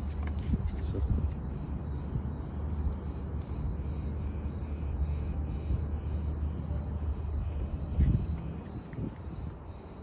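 Insects in the pine trees singing, a steady high-pitched chorus that runs on unbroken, over a low rumble, with a single thump about eight seconds in.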